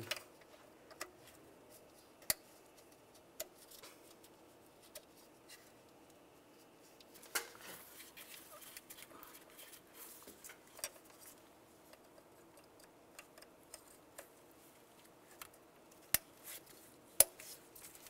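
Sparse sharp plastic clicks with light handling sounds: fuel injector electrical connectors being pushed on and their locking tabs snapped shut. The loudest click comes near the end.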